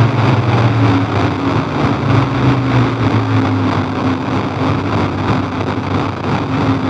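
Experimental noise drone from a Roland V-Synth XT synthesizer fed by an iPad and played from a Haken Continuum Fingerboard, which sweeps its filter, resonance and overdrive: a loud, dense, distorted wash of noise over low steady tones, the lowest of which fades about three seconds in.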